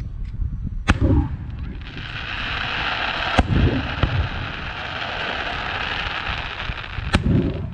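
Aerial firework shells bursting: three sharp bangs a few seconds apart, each followed by a low rumbling echo. A steady hiss runs from about two seconds in until near the end.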